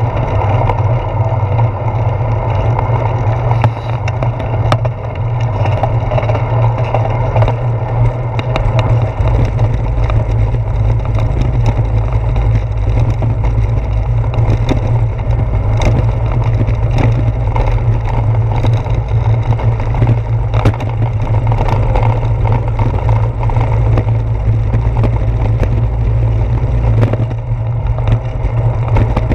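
Wind and road vibration picked up by a handlebar-mounted GoPro Hero 4 on a moving bicycle: a loud, steady low rumble with frequent sharp clicks and knocks as the tyres run over asphalt and brick-paved street.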